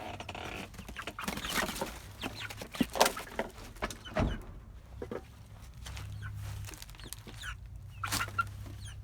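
Chickens clucking in short, scattered calls, busiest in the first half and again near the end.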